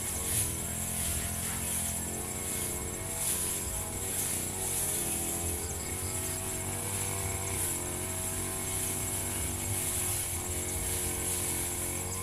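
Firman FGB 528 brush cutter's small petrol engine running at working speed, its pitch wavering slightly as it cuts grass.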